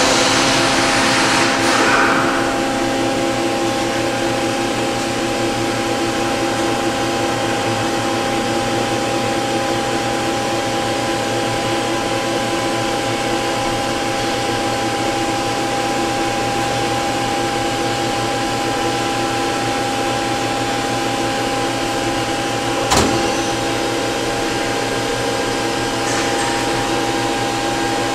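Okuma & Howa Millac 630H CNC horizontal machining center running its warm-up program, the spindle turning at about 2,500 rpm with a steady whine of several held tones over a hum. A hiss in the first two seconds, and a single sharp knock about 23 seconds in.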